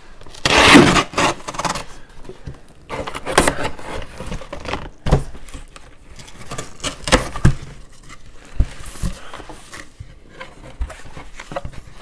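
Cardboard shipping box being handled and opened on a table: knocks and scrapes as it is turned over and set down, the packing tape slit with a blade, and the flaps pulled open. Irregular, with the loudest scraping about a second in.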